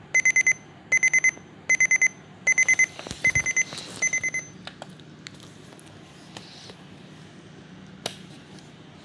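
Electronic alarm clock beeping: rapid high-pitched beeps in groups of four, repeating a little faster than once a second. The beeping stops about halfway through, and a few light clicks follow.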